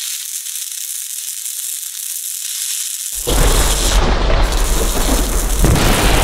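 Sound effects for an animated logo intro: a steady hiss, then about three seconds in a sudden loud boom that carries on as a noisy rumble.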